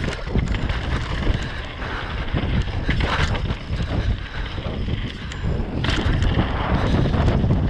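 Wind buffeting an action camera's microphone during a downhill mountain bike run, with a steady rumble of tyres and rattling bike over rough trail and a couple of sharp knocks from hits on the ground.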